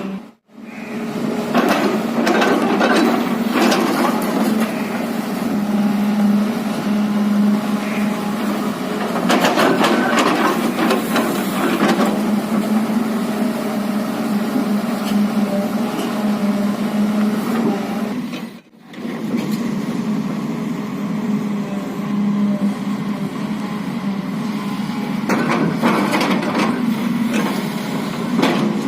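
JCB JS215 tracked excavator's diesel engine running steadily under load, with repeated bursts of clattering and scraping as the bucket digs into soil. The sound cuts out briefly right at the start and again about two-thirds of the way through.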